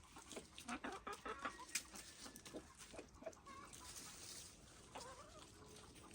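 Chickens clucking softly while they peck at fresh greens and weeds, with many short taps and rustles in the first few seconds.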